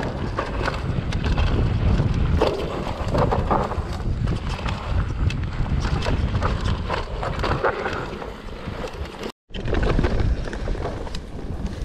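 Mountain bike descending a rough trail, with wind rushing over the action-camera microphone and the tyres and frame giving a constant run of rattles, clicks and knocks. The sound cuts out for a moment about two seconds before the end.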